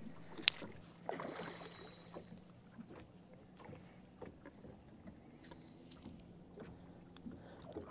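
Faint sounds aboard a small boat on open water: a low steady hum, a sharp click about half a second in, a short rush of noise about a second in, and scattered small ticks.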